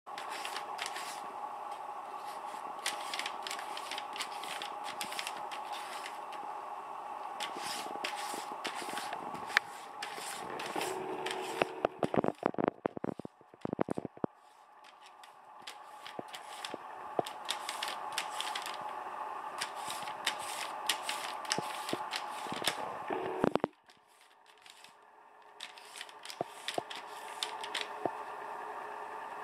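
Paper crackling and rasping as a cat licks and paws at a sheet of painted paper, in quick irregular scratches with a louder cluster about halfway through. A steady hum sits behind it and drops out twice.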